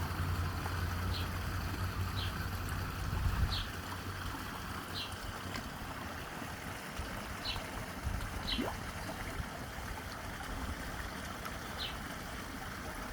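Steady rush of falling water from a small waterfall, with short high chirps repeating every second or so. A low hum under the water stops about three and a half seconds in.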